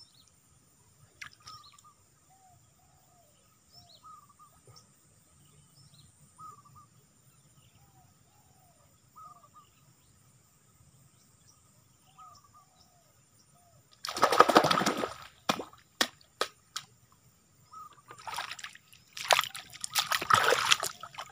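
Shallow swamp water splashing and sloshing as a person wades and moves through it, in two loud spells, one about two-thirds of the way in and one near the end, with a few sharp clicks between. Before that there are only faint, repeated short chirps.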